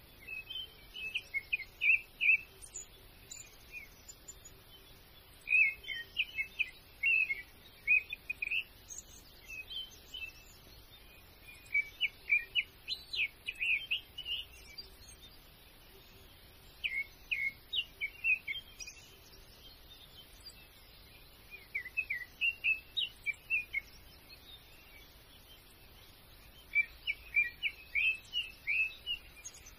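A songbird singing repeated short phrases of quick chirps, about six phrases, each a second or two long and a few seconds apart.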